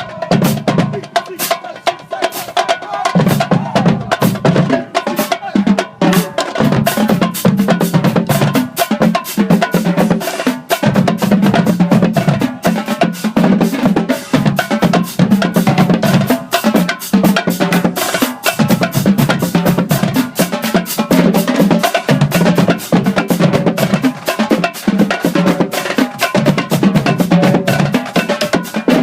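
Marching band drumline playing a fast cadence: rapid snare drum strikes and rolls over pounding bass drums.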